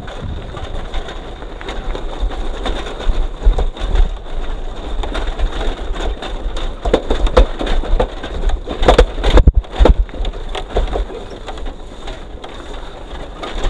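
Motorcycle riding over a rough, bumpy dirt track: wind buffeting the microphone, with an irregular rattling and knocking from the jolts.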